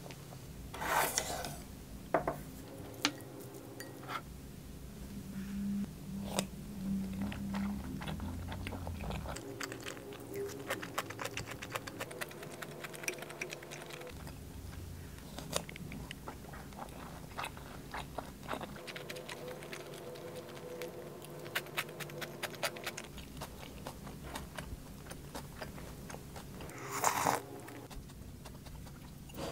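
A person eating: chewing and crunching mouthfuls of fried rice, with a wooden spoon and chopsticks clicking and scraping against the bowls and plate.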